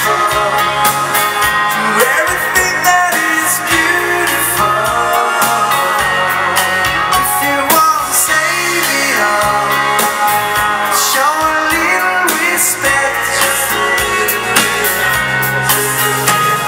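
Live dance band playing a foxtrot, with electric guitars, keyboard and drums over a steady beat.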